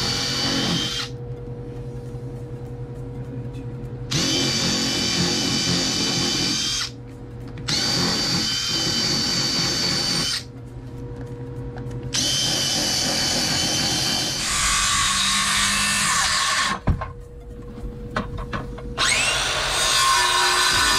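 A power drill driving screws into wooden floor framing, its motor whining in about four bursts of a few seconds each with short pauses between. Near the end a Makita 18V cordless circular saw spins up with a rising whine to cut a 2x4.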